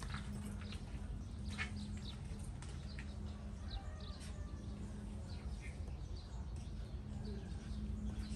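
Outdoor ambience with scattered short bird chirps over a steady low hum and rumble.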